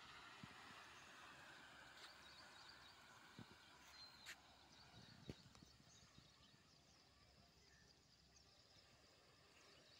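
Near silence: faint outdoor background with a few soft ticks and some faint, short high chirps.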